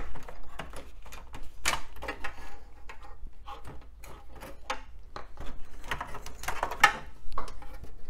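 Ribbon cables being worked loose and unplugged inside an old PC tower: irregular rustling and small clicks and knocks of the cable and its connectors against the sheet-metal case and cards.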